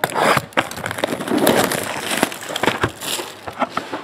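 Trading-card packaging being handled and opened: crinkling, crackling wrapper and cardboard with many quick clicks and taps.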